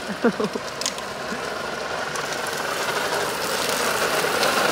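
Hard plastic wheels of a children's trike rolling and rattling on wet asphalt as it coasts downhill, the noise growing steadily louder as it comes closer. A brief shout comes just after the start.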